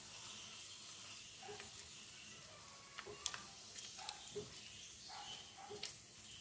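Pork belly slices sizzling gently in shallow oil over low heat as they finish frying golden, with a few sharp clicks and light knocks from about a second and a half in as wooden chopsticks lift the pieces out of the pan.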